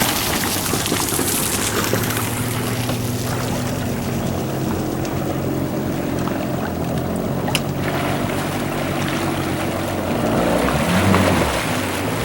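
Kawasaki STX-12F jet ski engine running on the water, a steady engine note under a wash of water and wind noise, its pitch shifting near the end.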